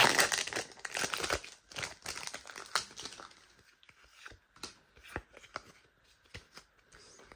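Foil wrapper of a trading-card booster pack crinkling as it is torn open by hand, loud and crackly for about the first three seconds. After that come a few faint clicks and taps as the cards are slid out of the pack.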